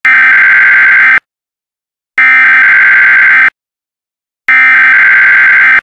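Emergency Alert System SAME header: three loud bursts of screechy digital data tones, each a little over a second long with about a second of silence between them, marking the start of an EAS alert.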